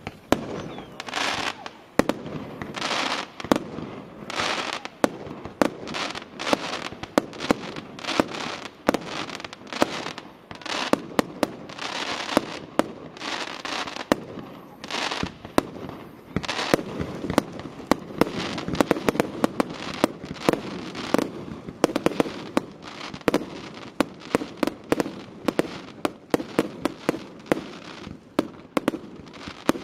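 Aerial fireworks display: a rapid, irregular barrage of sharp shell-burst bangs, mixed with half-second stretches of hissing, the bangs coming several a second in the later part.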